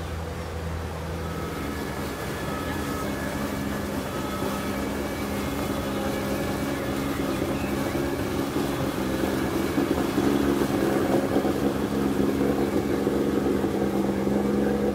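Small motorboat's engine running steadily as the boat passes on the river, getting louder through the second half.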